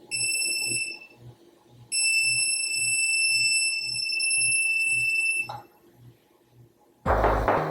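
Electronic stud finder beeping: a short high beep, then a long steady tone of about three and a half seconds, the signal that it has found a stud. Music comes in near the end.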